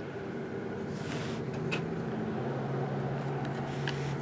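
A steady low machine hum, with a few faint rustles and clicks of trading cards being handled and shuffled by hand.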